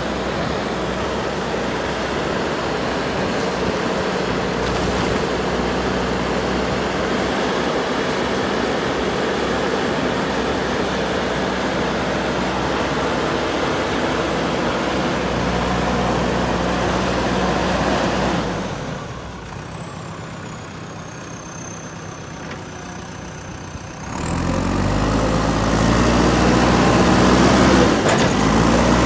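JCB 3DX Super backhoe loader's diesel engine running under load as the machine drives forward pushing soil with its front loader bucket. The sound drops to a quieter level for several seconds past the middle, then comes back louder with the engine revving up.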